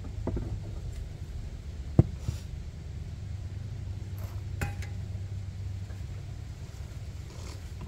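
A shovel scooping soil and tipping it into a large plastic planter pot. There is a sharp knock about two seconds in and another just past halfway, over a steady low rumble.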